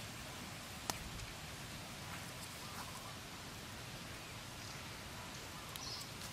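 Steady hiss of clams cooking on a stick grill over a small wood fire, with one sharp crackle about a second in and a few faint ticks.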